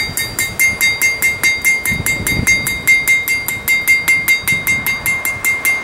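Hand hammer striking hot steel on an anvil in quick, even blows, about five a second, each with a bright ringing note from the anvil. The blows are drawing out and flaring small fins on the hot workpiece.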